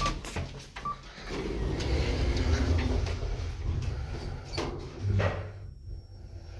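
2006 Kone Monospace elevator with its EcoDisc machine, the car travelling upward with a steady low hum. There are a few clicks near the start and a knock about five seconds in as the car comes to a stop at the floor.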